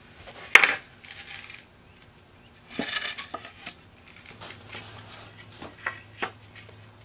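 Aromatic red cedar boards being set down and knocked into place on a concrete floor: a sharp clack about half a second in, a scrape of wood on concrete around three seconds, and two lighter knocks near the end.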